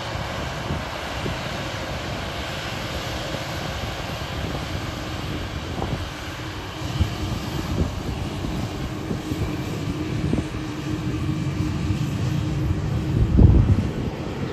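Jet engines of a Boeing 737-800 (CFM56 turbofans) running at taxi power: a steady jet hum with a faint held tone. Low rumbling buffets come and go and are loudest near the end.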